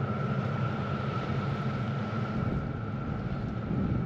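A steady machine hum, a low drone with a constant high whine over it, unchanging throughout.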